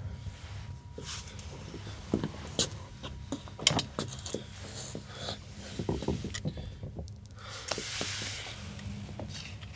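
Scattered knocks, clothing rustles and shuffling of a person moving about and sitting down in a chair, over a steady low hum.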